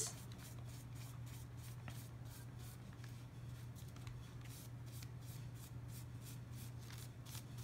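Soft, thick watercolour brush stroking on a thin Bible page in short quick strokes, several a second, over a low steady hum.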